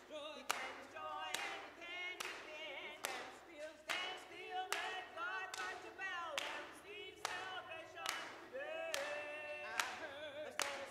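A small group of singers singing a cappella, with sharp handclaps keeping a steady beat a little under one clap per second.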